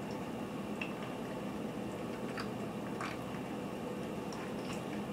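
Pieces of sour gum being chewed and crunched: a few faint scattered crunches and clicks over a steady low hum.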